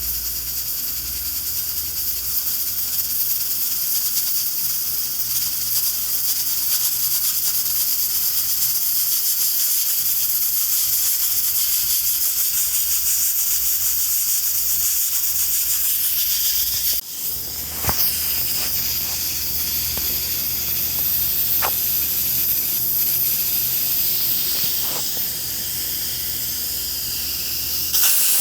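Pressure cooker hissing steadily as steam escapes through its valve, with a brief drop in the hiss about two-thirds of the way through and a few faint whistling tones after it.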